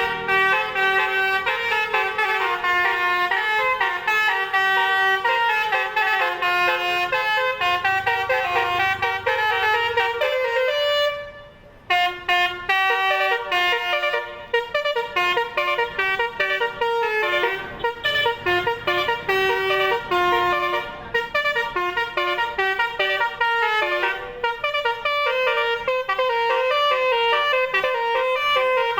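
Telolet basuri multi-tone bus horn playing a fast tune of quick stepped notes. It fades out briefly about eleven seconds in, then comes back sharply with another run of notes.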